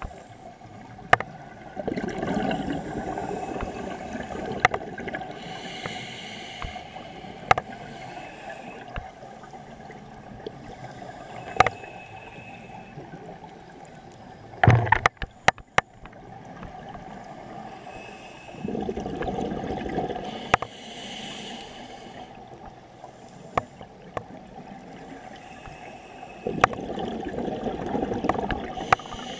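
Scuba diver breathing through a regulator underwater: three bubbling rushes of exhaled air, two of them followed by the hiss of an inhalation. Scattered sharp clicks throughout, and a loud knock about halfway through.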